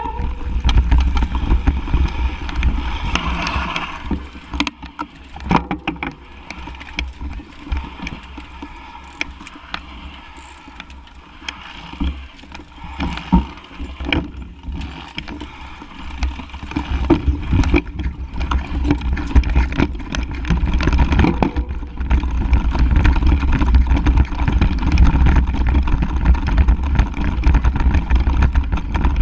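Mountain bike riding fast over bumpy grass, heard through a handlebar-mounted action camera: a heavy rumble of wind and vibration on the microphone, with scattered knocks and rattles from the bike. It eases for a stretch in the middle, then picks up again.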